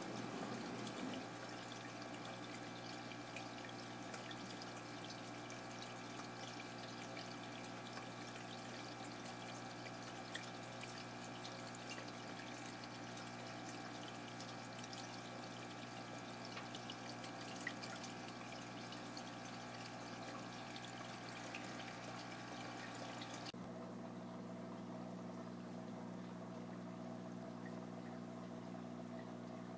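Water trickling and splashing in a seawater aquarium tank over a steady hum of pumps and equipment. The water sound cuts off abruptly about three-quarters of the way through, leaving only the hum.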